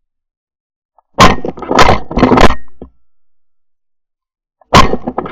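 Two loud bursts of shotgun blasts and hard knocks from a gun camera mounted on the barrel, about three and a half seconds apart. Each burst is a sharp blast followed by several jolting knocks lasting about a second and a half.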